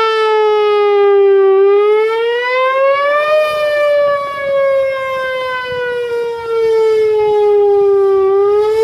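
Rotating outdoor tornado warning siren sounding a test: a loud, steady wail whose pitch slowly sinks, rises about three seconds in, sinks again and rises near the end. It grows louder and softer as the rotating horn sweeps around.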